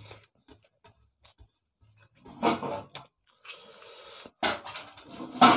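Eating by hand from stainless steel plates: scattered small clicks and taps of fingers and food on the metal, with louder eating noises about two and a half and five seconds in.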